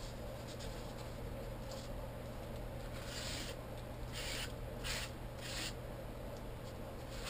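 Paper rubbed by hand over a stencil laid on a book page, pressing paint through: a few short rubbing strokes about three to six seconds in, over a steady low hum.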